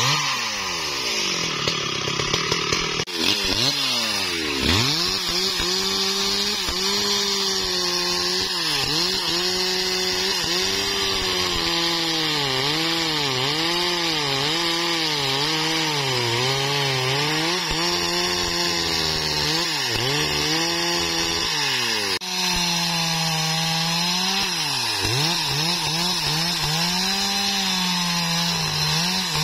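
STIHL MS 382 two-stroke chainsaw running at full throttle through a thick wadang log. Its engine pitch sags and recovers about once a second as the chain loads up and frees in the wood. The sound breaks off and picks up again abruptly twice.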